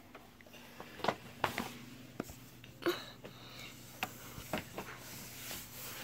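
Faint scattered knocks, rubs and rustles from a phone being handled in the dark under a bed, with about half a dozen short taps spread irregularly through it.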